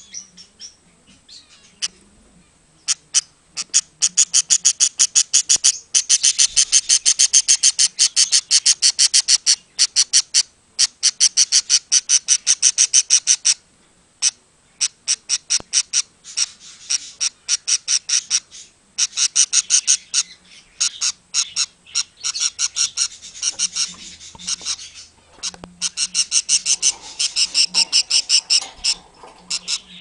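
Budgie (budgerigar) making a fast, even run of short, high-pitched chirps, about six a second, in long bursts with brief pauses between them.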